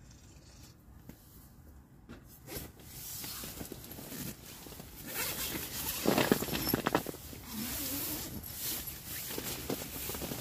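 Coleman Skydome tent door zipper being drawn open in several rasping pulls, with the tent's nylon fabric rustling; the loudest, longest pull comes about six seconds in.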